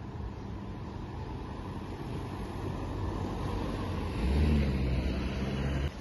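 A motor vehicle approaching, its engine and road noise growing louder, loudest as a low rumble over the last two seconds before cutting off suddenly.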